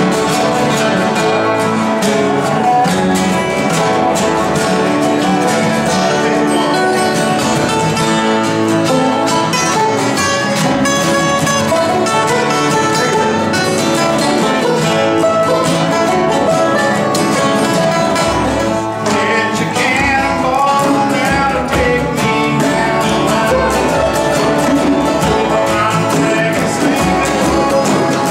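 Acoustic guitars strumming and picking together in a live jam. The music changes abruptly about two-thirds of the way in, as one tune is cut to another.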